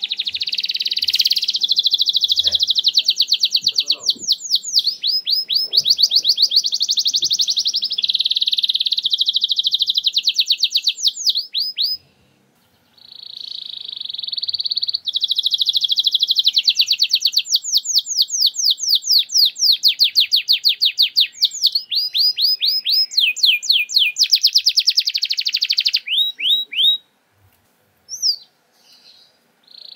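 Domestic canary singing a loud, long rapid-fire ("nembak") song of fast repeated sweeping notes and rolling trills, the kind played as a lure to set other canaries singing. It breaks off about twelve seconds in, starts again, and stops in short fragments near the end.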